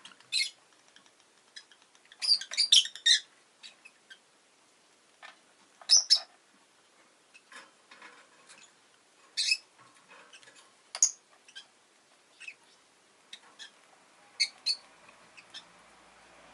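Rosy-faced lovebird giving short, sharp, high-pitched chirps, some singly and some in quick bursts of several, with faint small clicks in between.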